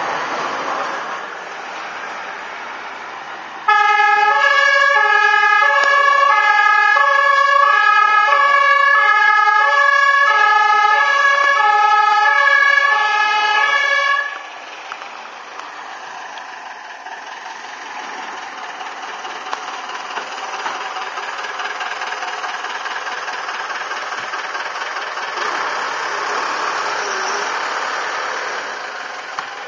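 A fire engine's two-tone horn (German Martinshorn) sounds for about ten seconds, alternating high and low notes, then cuts off abruptly. Afterwards the diesel engine of a Mercedes-Benz LF 8/6 fire truck runs steadily and swells a little near the end.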